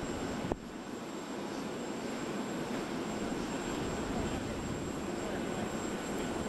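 Steady rumble of aircraft engines running, with no change in pitch. A sharp click about half a second in briefly lowers the level, which then slowly builds back.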